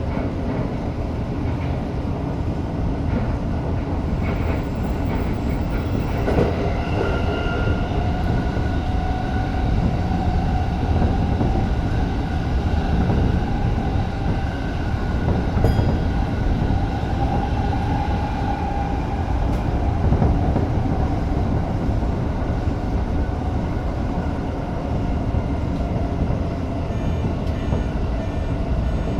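Tokyo Metro 05 series electric train running between stations, heard from inside the train: a steady rumble of wheels on rail, with a steady whine joining in about six seconds in.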